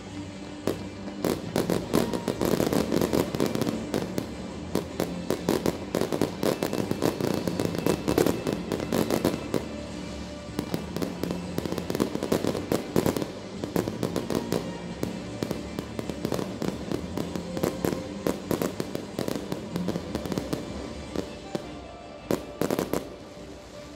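Fireworks display: a rapid, continuous stream of bangs and crackles, thinning out near the end with one last flurry, with music playing underneath.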